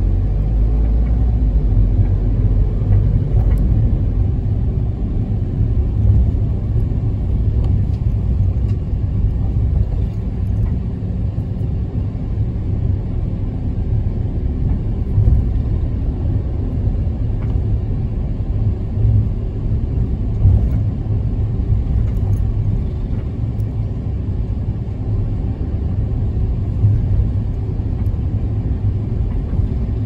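Cabin ride noise of a Toyota HiAce minibus under way: a steady low rumble from its diesel engine and tyres on the road, with faint rattles and clicks.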